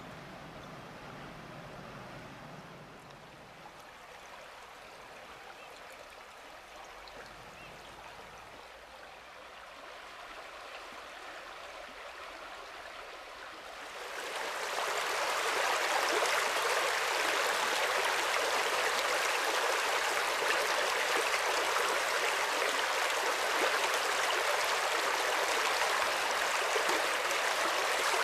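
River rapids rushing in a steady wash of water that becomes much louder and fuller about halfway through.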